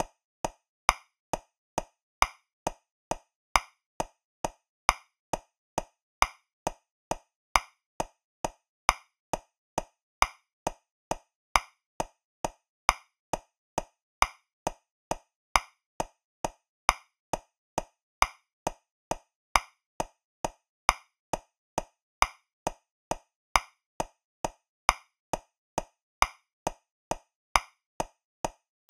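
Metronome clicking steadily at 135 beats per minute, a little over two clicks a second, in groups of three with the first click of each group louder: the accented downbeat of 3/4 time.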